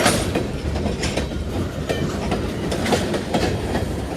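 Freight cars of a manifest train rolling past: a steady low rumble of wheels on rail, with irregular sharp clicks and clanks from wheels over rail joints and slack in the couplers.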